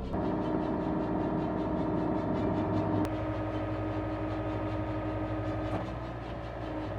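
Excavator engine running steadily with several held tones, the sound changing abruptly about three seconds in.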